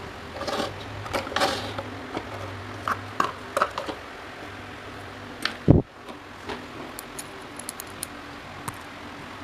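Small metal parts clinking and clicking as they are handled, with one heavier knock a little before six seconds in, over a steady low hum.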